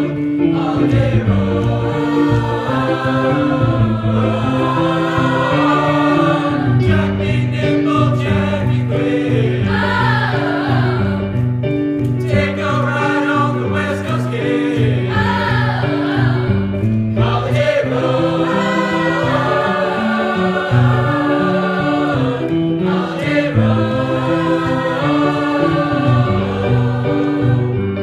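Mixed choir singing together, accompanied by an electric stage keyboard playing a stepping bass line beneath the voices.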